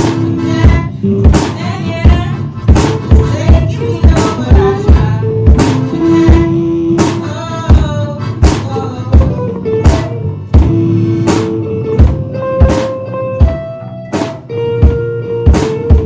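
Live band playing an instrumental passage of a song: drum kit keeping a steady beat, with bass, guitar and accordion holding notes over it.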